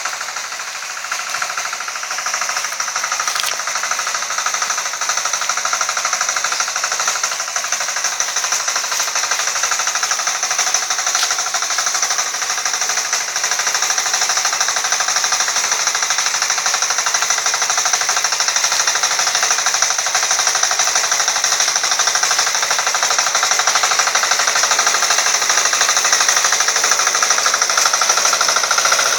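Walk-behind hand tractor's small engine running steadily under load as it tills weedy ground, a rapid even chugging that grows louder as the machine comes closer.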